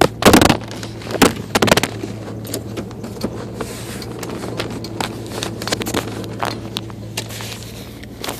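A man hiccuping, a few sharp loud hiccups in the first two seconds and fainter ones after, over the steady low hum of an idling truck engine.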